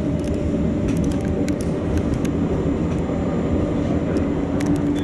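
Catenary-free light rail tram running steadily, heard from inside the driver's cab: a constant low rumble of wheels on rail, with a steady motor whine that fades soon after the start and comes back near the end, and scattered faint clicks.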